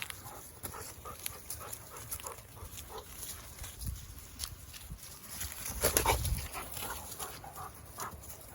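Wolf dogs and a husky vocalizing as they play: a string of short calls, loudest about six seconds in.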